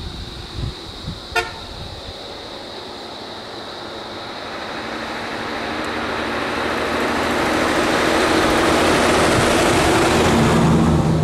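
A heavy lorry approaching along the road, its diesel engine and tyre noise growing steadily louder over the second half and loudest near the end as it draws close.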